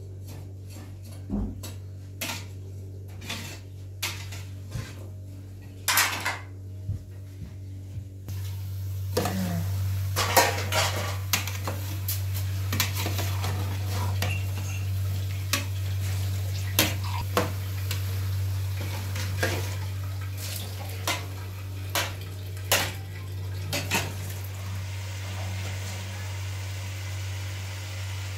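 A metal spoon clinks and scrapes against an aluminium cooking pot as chopped onions are stirred, with pots and lids knocking now and then. A steady low hum runs underneath, and a soft hiss comes in about eight seconds in.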